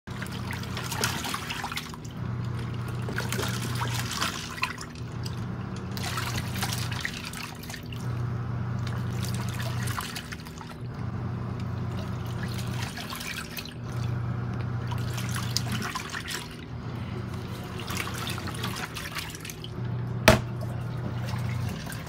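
Nictemaw portable top-load washing machine in its wash cycle: the motor hum switches on and off about every two seconds as the wash plate turns one way and then the other, with water and clothes sloshing in the drum. A single sharp click near the end.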